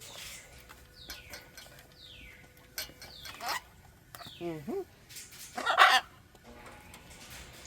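Macaws calling: several short falling whistles, a lower wavering call about four and a half seconds in, and a loud harsh squawk near six seconds.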